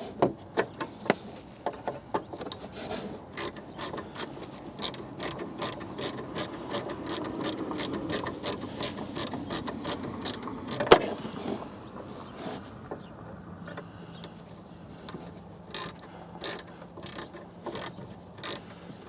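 Hand ratchet from the Jeep's factory tool kit clicking in quick repeated strokes as the tail light fasteners are driven, about two to three clicks a second. The clicking thins out for a few seconds past the middle, with one sharper knock just before.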